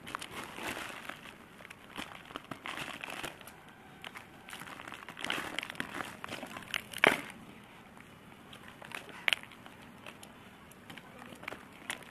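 Dry grey chalky lumps being crumbled between fingers, grit and powder falling onto a plastic-lined cardboard box: irregular gritty crunching and crackling, with a sharp crack about seven seconds in and another a couple of seconds later.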